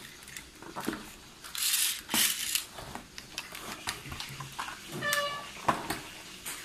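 Clear plastic blister packaging being handled: crinkling and rustling, loudest about two seconds in, with scattered clicks of small plastic parts.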